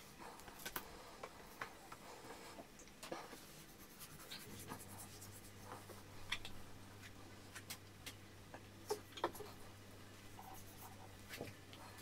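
Knife and hands working a sheet of raw pork flank on a plastic cutting board, trimming off soft fat: faint, scattered scrapes, taps and rubbing.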